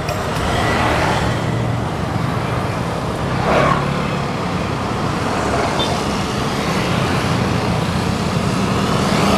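Road traffic: motor scooters and cars running past on a two-lane road, with one vehicle passing close about three and a half seconds in.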